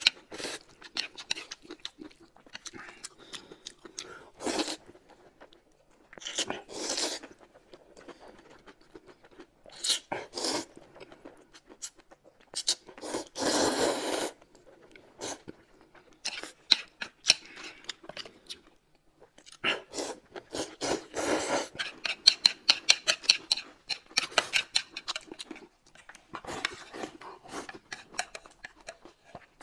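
Close-up eating sounds: noodles slurped and chewed, with wet mouth clicks and smacks throughout. One long, loud slurp comes about halfway through, and a fast run of smacking follows later.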